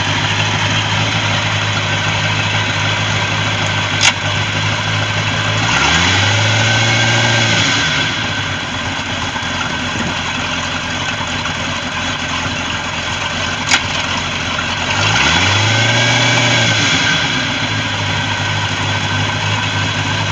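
Chaparral deck boat's engine idling steadily, revved briefly twice, about six seconds in and again about fifteen seconds in, dropping back to idle each time. Two sharp clicks sound between the revs.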